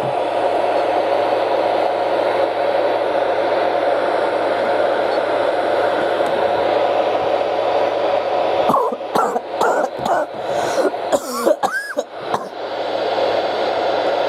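Weather radio receivers hissing with loud, steady static after the NOAA Weather Radio transmitter has gone off the air: with no carrier, the open receivers pass only noise, over a faint hum. About nine seconds in, the static cuts in and out for a few seconds with short warbling squeals, then settles back to a steady hiss.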